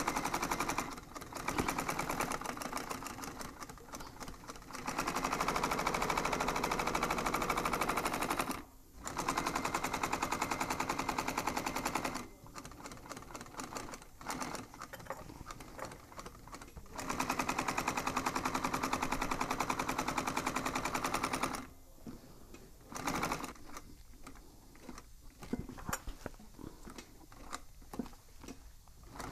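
Industrial sewing machine stitching a foam-backed upholstery panel in fast runs of one to four seconds, stopping and starting several times as the panel is turned between lines of the triple-stitch diamond pattern.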